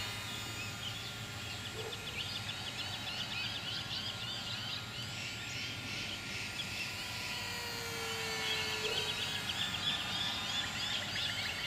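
Outdoor ambience full of rapid high chirping. Under it runs a faint, steady whine, which fits the ultra-micro RC warbird's small electric motor flying at reduced throttle.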